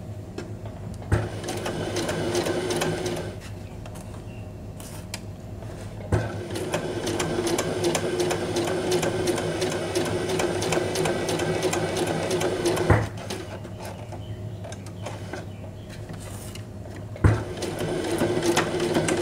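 Electric sewing machine stitching through layered felt in three runs: a short one near the start, a long run of about seven seconds in the middle, and another beginning near the end. Sharp clicks mark where the runs start and stop.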